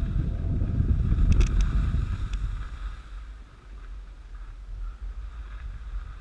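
Wind buffeting an action camera's microphone as the rider moves down a ski slope, a heavy rumble that eases off after about two and a half seconds, over a steady hiss of snow sliding underfoot. A few sharp clicks come about a second and a half in.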